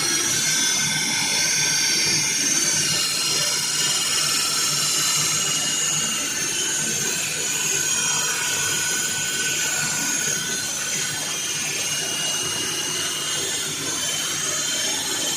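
Floor saw cutting into a concrete floor: the motor runs steadily while the diamond blade grinds through, with a steady high-pitched squeal over the noise of the cut.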